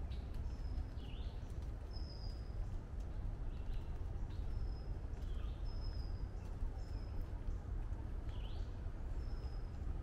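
Woodland birds singing: short, high, level whistles every second or two, mixed with shorter lower chirps, over a steady low rumble.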